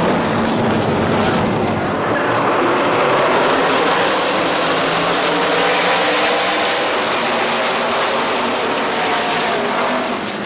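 A pack of NASCAR Craftsman Truck Series race trucks running at speed past the grandstand, their V8 engines making one loud, dense wall of sound with engine notes rising and falling as trucks pass. The sound drops a little near the end.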